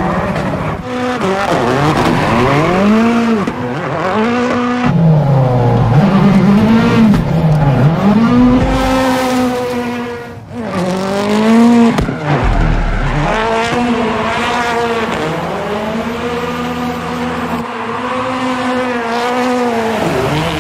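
Ford Fiesta rally car's engine revving up and down over and over under hard throttle as it drifts, with tyres squealing. About halfway through the revs and loudness drop sharply, then climb again.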